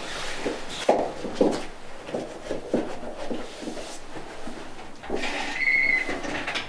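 Rustling of a heavy coat being handled, with light shuffling steps and small knocks, in a small echoing room. About five seconds in comes a louder scraping with a short squeak, which then stops.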